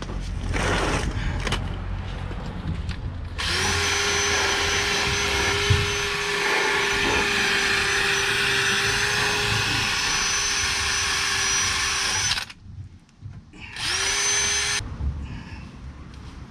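Cordless drill spinning a cleaning attachment against the face of a van's wheel hub, scouring it clean: a steady motor whine over a harsh rasping that runs for about nine seconds from roughly three seconds in, stops, then comes again briefly near the end.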